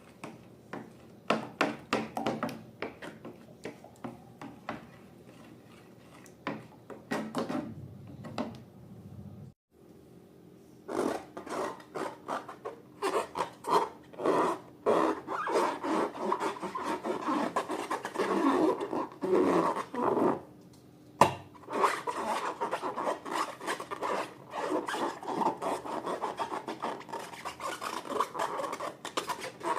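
Slime-making sounds: repeated rubbing and scraping as slime and its ingredients are worked by hand in a container, denser and louder after a brief gap about ten seconds in.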